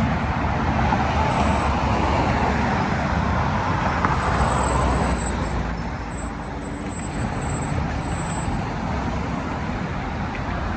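Road traffic passing close by: a steady rush of tyres and engines with a low rumble, a little louder in the first half as vehicles go past.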